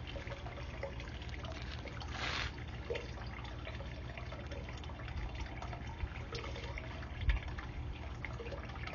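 Water trickling and dripping, with scattered small clicks and a steady low rumble underneath.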